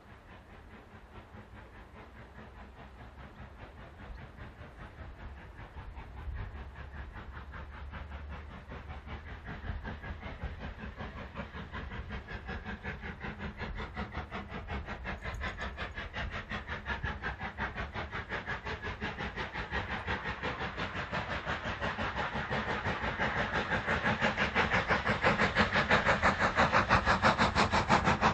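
Steam locomotive hauling a train of coaches on the approach, its exhaust beats coming in a rapid, even rhythm that grows steadily louder as it draws nearer.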